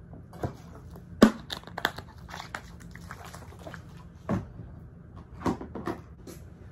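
Handling noise: a run of short knocks, clicks and crinkles as things are picked up and set down, the sharpest about a second in, with more around four and five and a half seconds in, over a steady low hum.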